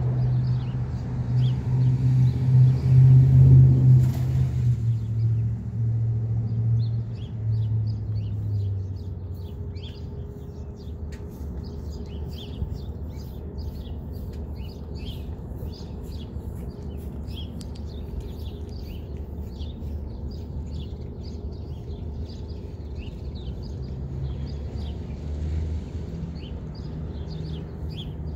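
A passing vehicle's low rumble, loudest about three to four seconds in and fading away by about nine seconds, over steady traffic noise. Small birds chirp busily throughout, a dense run of short high calls that carries on once the rumble has gone.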